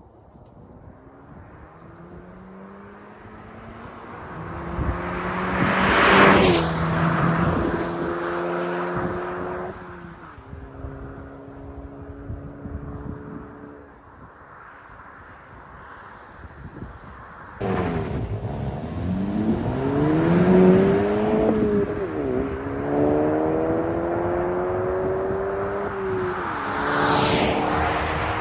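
Exhaust of a 2018 Mk7.5 Volkswagen GTI through a GTI TCR muffler, with the turbo muffler deleted. The car accelerates in runs, its engine note climbing and falling several times, loudest twice. The sound cuts abruptly to a new run about two-thirds of the way through.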